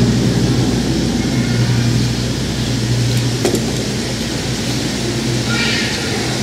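A steady low hum under an even hiss, with a faint voice-like sound near the end.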